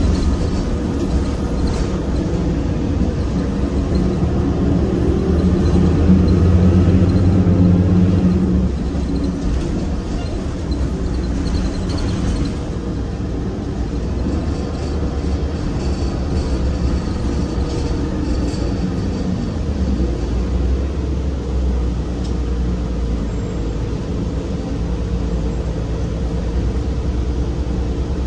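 Interior noise of a 2008 Orion VII compressed-natural-gas bus under way, its Cummins Westport ISL G six-cylinder engine and ZF six-speed automatic transmission heard from the rear of the cabin. A low engine drone swells about five seconds in and eases off at about eight and a half seconds, and a faint whine slowly falls in pitch partway through.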